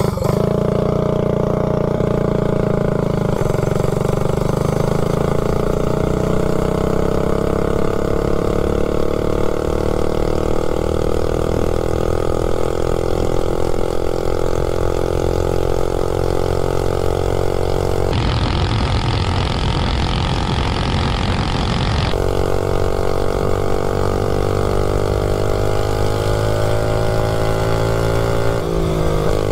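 Tillotson 263cc single-cylinder four-stroke engine on a mini bike running under way, its note climbing slowly at first and then holding steady. About two-thirds of the way in, a rushing noise covers it for a few seconds.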